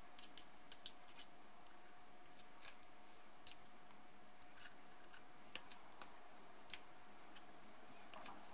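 Small irregular clicks and light scrapes of a metal spoon against a plastic spoon while portioning coconut macaroon mixture into paper liners, about a dozen faint clicks in all.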